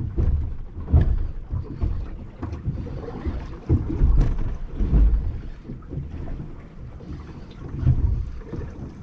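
Wind buffeting the microphone aboard a small open fishing boat, rising and falling in irregular gusts, with a few light knocks.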